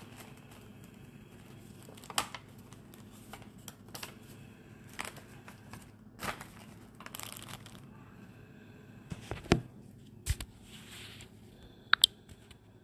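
Plastic packaging and a paper packing slip crinkling and rustling as they are handled, in short irregular bursts. A couple of sharp clicks come near the end.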